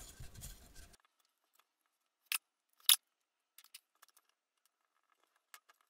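Faint handling rustle, then two sharp clicks a little over half a second apart and a few light ticks: small drone hardware (standoffs and screws) being handled and fitted to a carbon-fibre frame.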